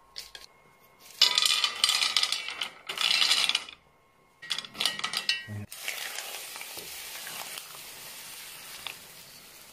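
Smooth pebbles clattering and clacking as they are tipped from a wire strainer into a pot. From about six seconds in, a steady sizzling hiss that slowly fades: beaten egg poured over oysters on the hot stones.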